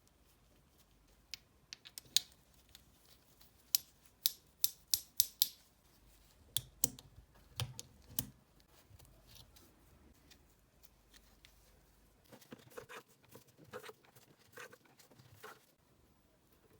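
Sharp clicks and light taps of small hard parts and tools being handled, about six quick clicks in a row near the middle, then a few dull knocks, then softer clicking near the end.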